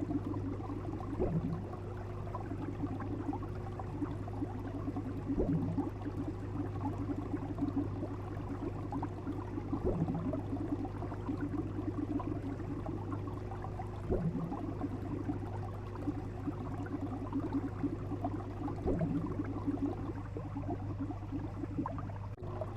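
Water bubbling and crackling over a steady low hum, with a soft knock about every four and a half seconds.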